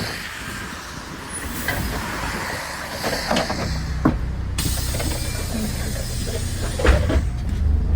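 Road traffic: a heavy vehicle's low engine rumble builds from about halfway and is loudest near the end, over a steady background of passing traffic, with a few sharp clicks.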